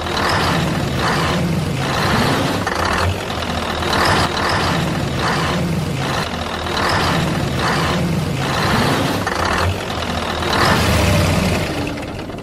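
Truck engine running steadily, swelling in an uneven pulse roughly once a second.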